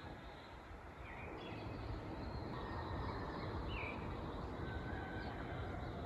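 Outdoor ambience: a steady low hiss with a few faint, short bird chirps scattered through it.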